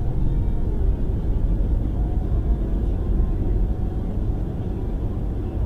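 Car driving on a snow-packed road, heard from inside the cabin: a steady low rumble of engine and tyres.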